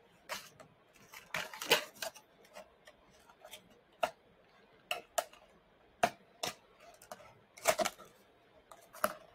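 A small cardboard box being handled and turned in the hands: scattered taps and clicks of the card, with a louder burst of handling about a second and a half in and another near the end.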